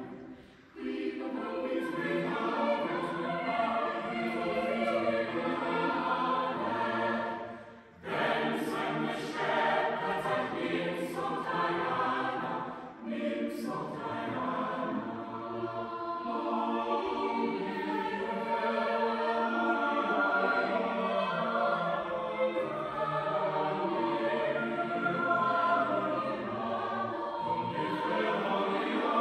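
A small mixed chamber choir of sixteen voices singing unaccompanied, with short breaks between phrases about one, eight and thirteen seconds in.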